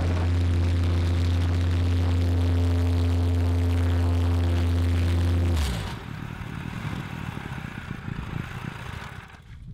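Petrol plate compactor running at full throttle, its engine and vibrating plate giving a loud, steady hum as it compacts loose backfilled soil. About two-thirds of the way through, the engine speed drops abruptly and the machine carries on much more quietly and unevenly.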